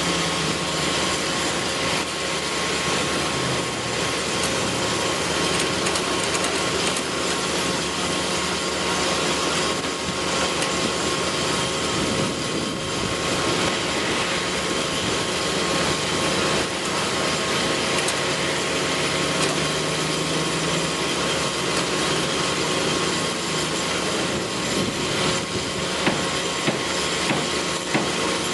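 Steady whirring noise like a small motor running, with a few faint steady tones in it.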